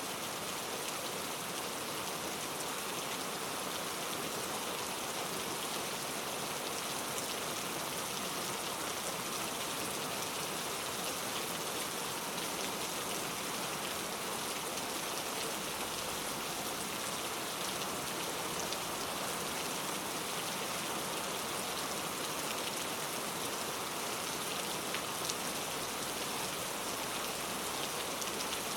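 Steady rain falling, an even dense hiss of drops with a few sharper drop ticks here and there.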